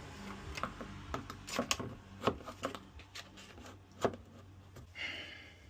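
Scattered small clicks, taps and knocks of a locksmith's tools working a locked door, with a sharp knock about four seconds in and a brief rustle near the end, over a low steady hum.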